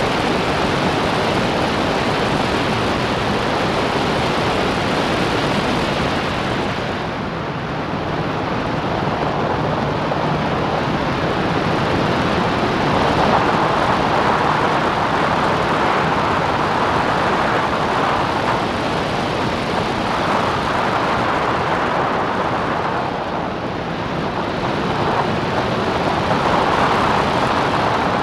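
Open-cockpit Clubman racing car at speed: engine noise mixed with heavy wind rush on the onboard microphone, a steady dense roar that dips briefly about seven seconds in and again near the end.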